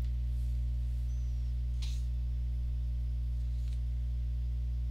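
A steady low electrical hum, like mains hum, with a faint click about two seconds in.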